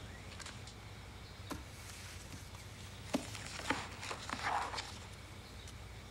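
Quiet room tone with a few faint clicks and a brief soft rustle about four and a half seconds in.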